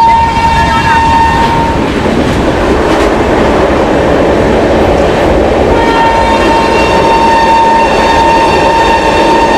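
WAP-7 electric locomotive horn sounding a long steady blast that stops about two seconds in and another that starts near six seconds, over the running rumble and clickety-clack of the train.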